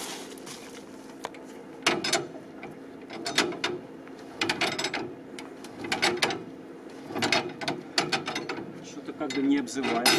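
A Willys jeep's engine is turned over by hand with the starting crank. Each pull brings a short burst of metallic clicking and rattling from the crank and engine, about seven pulls a second or so apart, and the engine does not catch.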